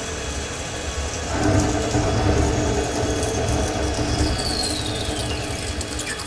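Tormach Slant-Pro CNC lathe turning an aluminium part dry, the spindle and tool cutting steadily with a mechanical hum that grows louder about a second and a half in. Over the last two seconds a whine falls steadily in pitch.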